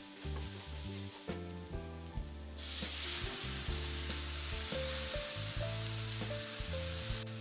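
Onions and spices frying in hot oil in an iron kadai, stirred with a metal spatula. About two and a half seconds in, water poured into the hot oil sets off a sudden, loud hissing sizzle that carries on for several seconds. Background music plays throughout.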